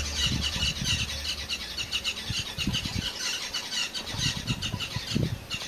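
A rapid, even run of high chirps, about five a second, over low gusts of rumble.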